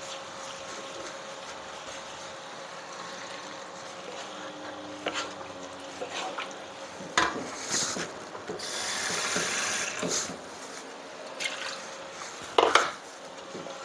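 Wooden spatula scraping and knocking against a non-stick wok while stirring curry sauce, in scattered strokes over a low steady hiss. A louder hiss rises for about a second and a half around nine seconds in.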